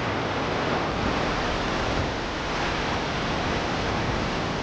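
Ocean surf washing in, a steady rushing noise with no break.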